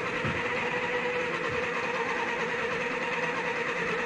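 Small electric motor of a battery-powered toy pottery wheel, running on two D batteries, spinning steadily at its lower speed setting (speed 1). It gives an even, steady whine.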